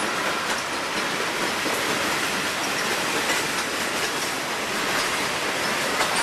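Freight train cars, many of them loaded rock (ballast) hoppers, rolling past. A steady rumble and rattle of wheels on rail, with a few sharp clicks now and then.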